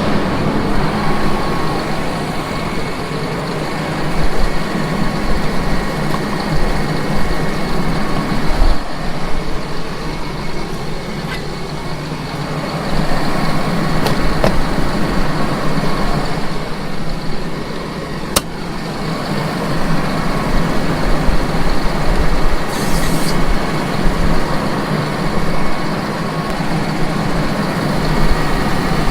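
A vehicle engine running steadily, with a few sharp clicks.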